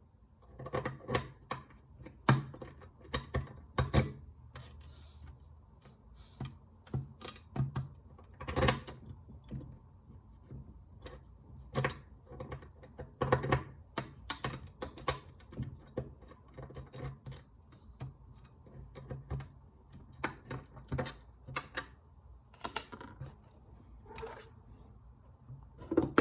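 Irregular metallic clicks and rattles of a pick being wiggled and raked in the key lock of a steel SnapSafe lock box, with small knocks against the box as it is worked.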